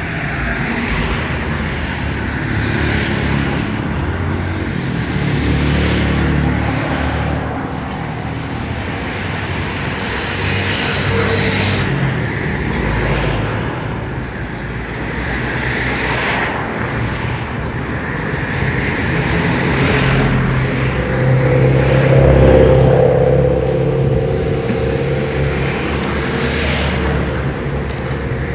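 Road traffic going by: car engines and tyres in a steady wash. One vehicle passes louder, with its engine hum peaking about three-quarters of the way in.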